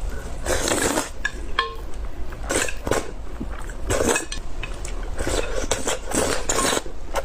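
Close-miked eating of instant noodles: several short noisy slurps and mouth sounds, with utensils clinking against a bowl a few times about a second in.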